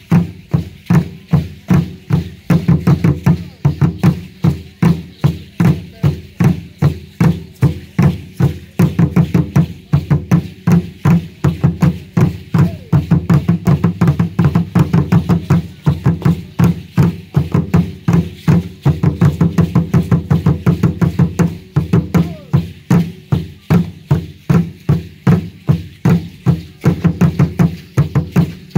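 Danza azteca drumming, a large upright drum (huehuetl) beaten in a steady, driving rhythm that runs faster and denser in stretches.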